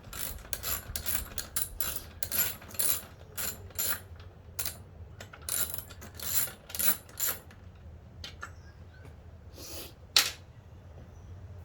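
Socket ratchet clicking in a quick run of strokes as a bolt on the seat's bracket is worked, stopping about seven and a half seconds in. A few separate clicks and a sharper knock follow near the end.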